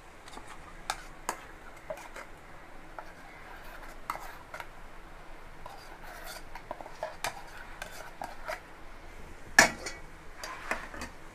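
Steel spoon scraping thick ground masala paste out of a steel bowl into an aluminium pressure cooker: scattered metal-on-metal scrapes and clinks, with one loud clank about nine and a half seconds in.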